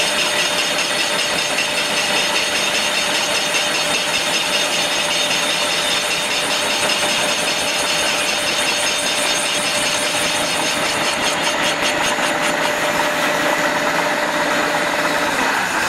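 CNC facing machine's rotating facing head cutting the flange face of a cast iron fire hydrant body: steady metal-cutting noise with a fast, even pulse, over a steady hum that stops near the end.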